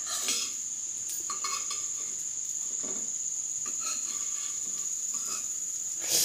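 Soybean cutlets frying in oil in a nonstick kadhai while a metal spoon scrapes and knocks against the pan, turning them over. A steady high-pitched whine runs underneath.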